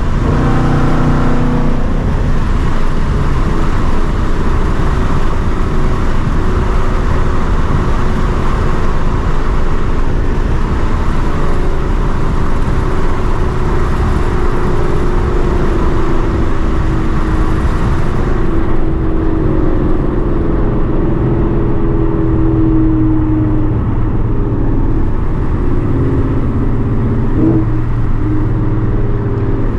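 2021 Mustang GT's 5.0 Coyote V8, fitted with catless long-tube headers, running loud and steady under way, with road noise. About two-thirds of the way through the higher hiss drops away and the engine note slowly falls in pitch.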